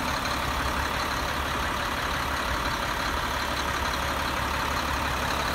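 The diesel engine of a 2005 Freightliner tow truck idling steadily, heard with the hood tilted open.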